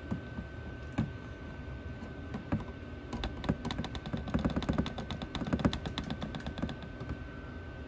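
Engine oil glugging out of a plastic bottle into a funnel: a quick, irregular run of gulps and clicks as air bubbles back into the bottle. The gulps are densest from about three to seven seconds in.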